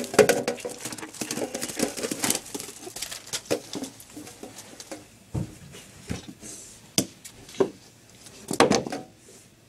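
Scattered knocks, rustles and shuffling as the kids move about on a carpeted floor and the phone camera is handled close to the microphone, with a couple of brief muffled vocal sounds, the loudest near the end.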